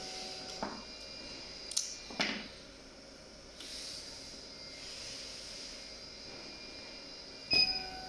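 Automatic pneumatic optical-fibre stripping machine at work: a steady hum broken by sharp metallic clicks, one about half a second in, two around two seconds in, and the loudest near the end.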